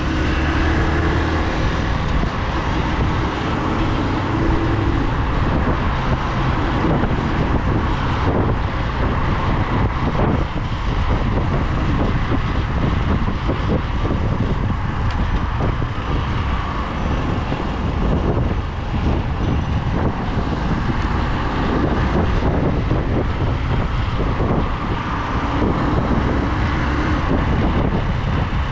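Motorcycle riding through city traffic: the bike's engine running under a steady rush of road and wind noise on the microphone, with surrounding cars.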